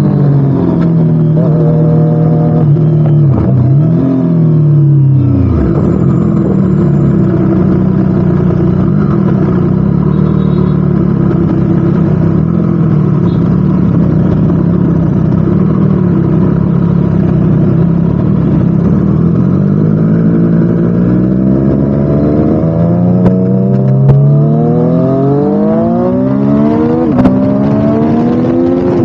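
Triumph Street Triple RS inline three-cylinder engine running loud through a Spark slip-on exhaust. The note drops sharply about five seconds in, holds steady for a long stretch, then climbs in pitch as the bike accelerates over the last ten seconds.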